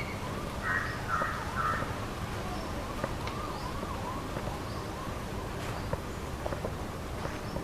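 Birds calling: three short harsh calls about a second in, then a quick run of small rising-and-falling notes, over a steady low background rumble with a few light clicks near the end.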